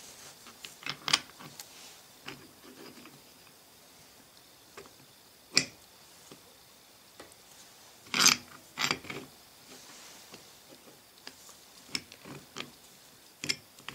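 Metal parts of a 1950s GM Eaton limited slip differential clicking and clinking as the steel spacer block and gears are fitted and shifted inside the differential case. The clicks are scattered: one sharp knock about midway, a quick cluster a little after, and a few lighter ticks.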